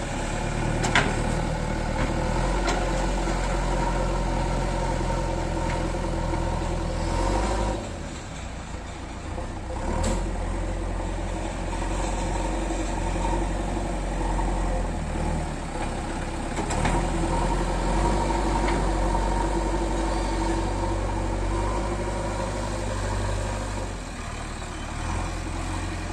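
JCB 3DX backhoe loader's diesel engine running while it works, its note dropping back and picking up again several times. A few sharp knocks come near the start and about ten seconds in.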